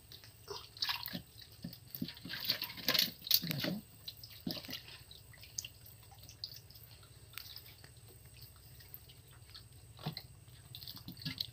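Small water splashes and drips as hands work through mud and stones in shallow water, clustered in the first few seconds and again near the end, with a quieter stretch in between.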